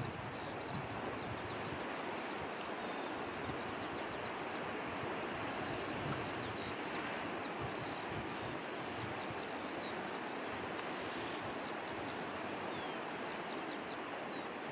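Steady rush of wind with occasional low buffets on the microphone, while small birds twitter in quick, high chirps and whistles throughout.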